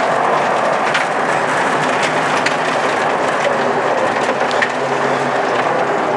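Audi 80 quattro rally car at speed on gravel, heard from inside the cabin: the engine runs steadily under a constant noise of tyres on loose gravel. Stones tick against the underbody now and then.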